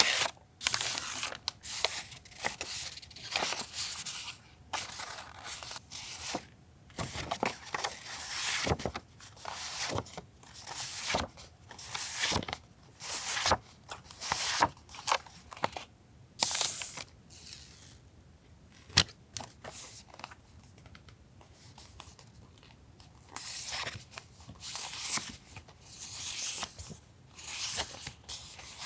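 Paper stationery and plastic packaging being handled and unpacked: irregular rustling, sliding and crinkling with a few sharp taps. A quieter stretch falls a little past the middle.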